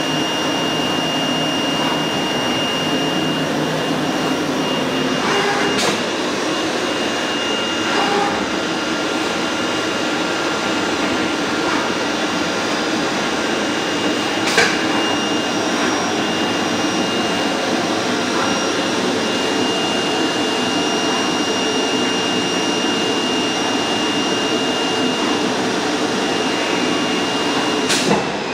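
Flatbed CNC digital cutter running while it cuts quilted car floor-mat material: a steady whirring machine noise with a thin steady high whine over it, and three sharp clicks spread through it.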